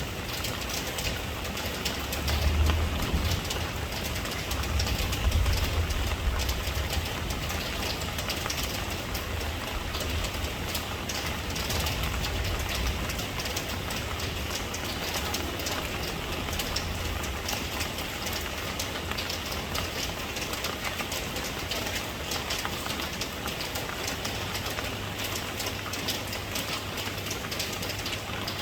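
Steady rain with a dense patter of drops, over a low rumble that swells in the first few seconds and then settles.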